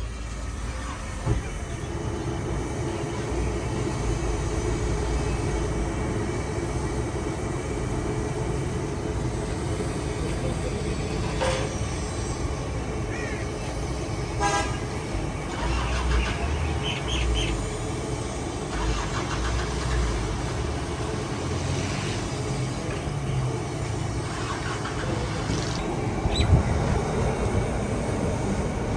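Busy street traffic with engines running and horns honking a few times, mostly around the middle.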